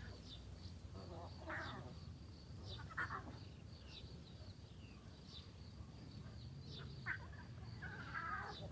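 Lioness and her young cubs calling to each other: four short calls.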